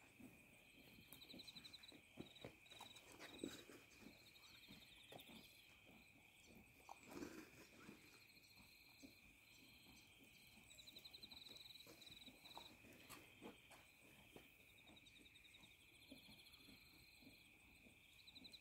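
Near silence, with faint crickets chirping: short, rapid trills that come every few seconds over a steady high tone.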